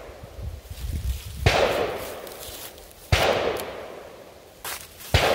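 Pietta reproduction 1862 Dance .44 cap-and-ball revolver firing three shots, loaded with Pyrodex black-powder-substitute pellets. The shots come roughly two seconds apart, the last near the end, and each is followed by an echo that dies away over about a second.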